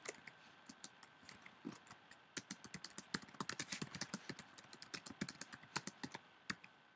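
Typing on a computer keyboard: faint key clicks, a few scattered at first, then a quick run of keystrokes from about two seconds in.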